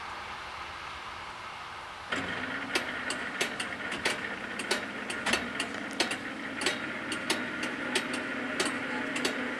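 Level crossing warning equipment starts suddenly about two seconds in: a steady hum with sharp, ringing bell strikes about one and a half times a second. The barriers begin to rise near the end.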